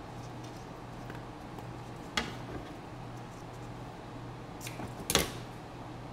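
Handling noises on a silicone-matted workbench: a sharp click about two seconds in and a louder short knock about five seconds in, as small parts and a tape roll are handled. A steady low hum runs underneath.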